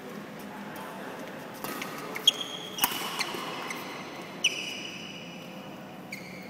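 Badminton rackets striking a shuttlecock: sharp hits, each followed by a short high-pitched ring from the strings. The three loudest fall between about two and five seconds in, with fainter ones around them, over a steady background murmur.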